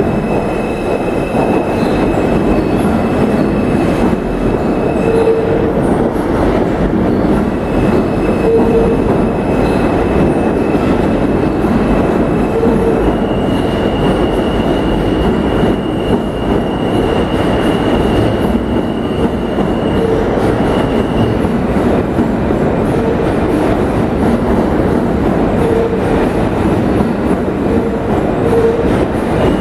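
New York City subway R160 train pulling out of a station and running past along the platform: a loud, steady rumble of wheels on rail with a high, thin screech. The screech steps up in pitch about halfway through, fades out around two-thirds of the way in, and returns near the end, over short clacks repeating every second or two.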